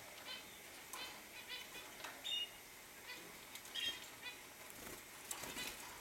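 Caged hooded siskins chirping and twittering: short high notes a few times a second, the loudest about two seconds in and again near four seconds, with a few soft clicks.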